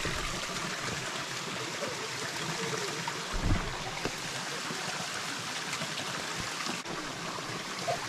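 Steady rushing of a mountain stream, with one low thump about three and a half seconds in.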